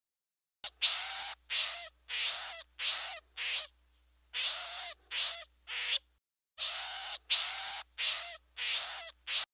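Pygmy marmoset calling: a run of short, very high-pitched calls, each rising then falling in pitch, repeated about fifteen times with a brief pause about six seconds in.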